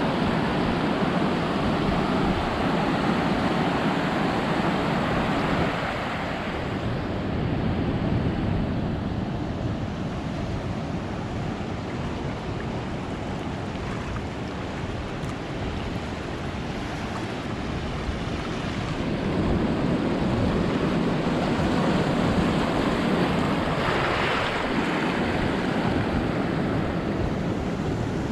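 Ocean surf breaking and washing up a beach. It is loud for about the first six seconds, eases off, then builds again, with a wave breaking about twenty-four seconds in. Wind rumbles on the microphone.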